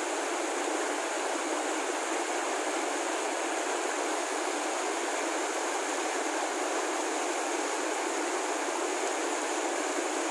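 Shallow rocky river running, a steady, even rush of flowing water.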